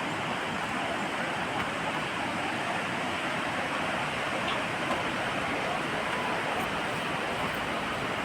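Fast-flowing water of the Alaknanda river rushing over rocks, a steady, unbroken wash of noise.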